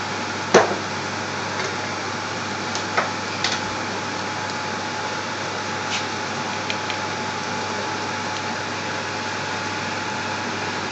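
Steady hiss with a faint steady hum from a kitchen stovetop where a pan of onions and spices is cooking, with a few light ticks, the clearest about half a second in.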